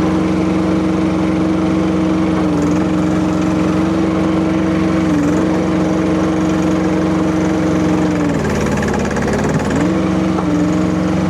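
Kubota diesel engine of a Rippa RS04 mini skid steer running steadily at high speed. Its pitch dips briefly twice, then drops more deeply for about a second and a half near the end before coming back up.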